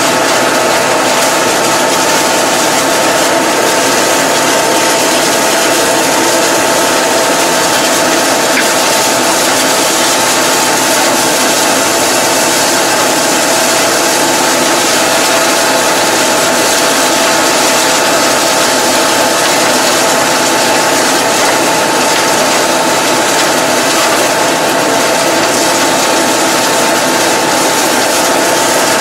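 Tractor engine running steadily under load, heard from inside the cab, with a constant high mechanical whine from the driveline and the PTO-driven mower as it cuts tall reeds and grass.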